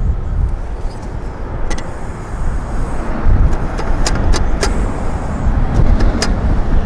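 Strong wind buffeting the microphone as a loud, steady low rumble, with a handful of sharp clicks or knocks in the middle of it.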